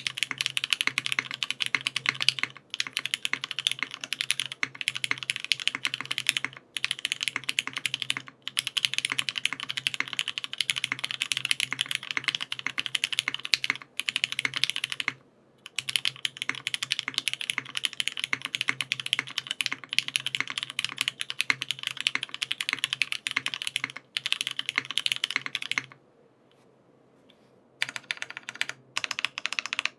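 Fast continuous typing on a Geon Glare65 custom mechanical keyboard with lubed Cherry MX Black linear switches, GMK keycaps, a 1.5 mm aluminium plate and a brass bottom case with no foam. The keystrokes run in dense runs broken by several brief pauses, with one near-silent break of about two seconds near the end.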